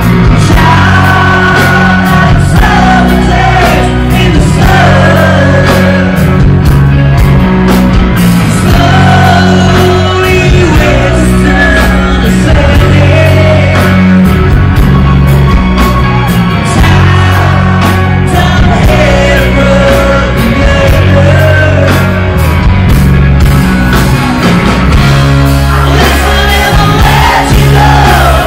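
Live hard rock band playing loud: a male lead singer sings over electric guitar and drums with a steady beat.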